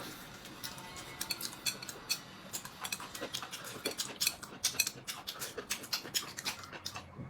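Cutlery and dishes clinking at a meal table: rapid, irregular small clicks and taps of utensils against bowls and plates.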